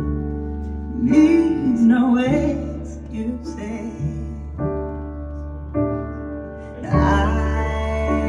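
A song with a sung vocal line over sustained instrumental chords. The voice drops out in the middle while the chords hold, then comes back near the end.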